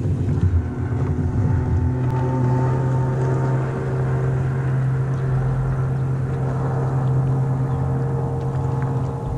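A motorboat's engine running steadily, a low even hum that wavers a little at first and then holds one pitch.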